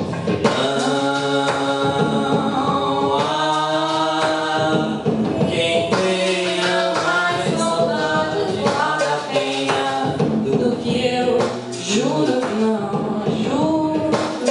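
A man and a woman singing together at microphones, their voices carrying the music with little else behind them.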